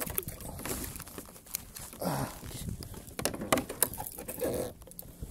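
Irregular knocks, taps and rustling from handling on a plastic fishing kayak.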